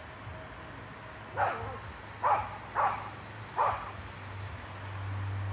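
A dog barks four times in short, sharp barks over the steady low hum of an approaching diesel multiple unit, a Great Western Railway Turbo. The train's drone grows louder near the end.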